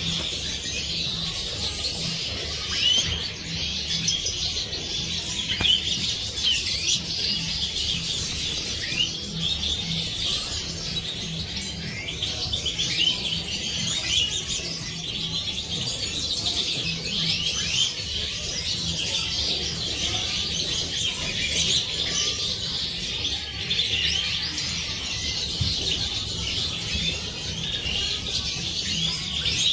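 A flock of Siberian goldfinches (Carduelis carduelis major) twittering and chirping all together in a dense, continuous chorus, over a low steady hum.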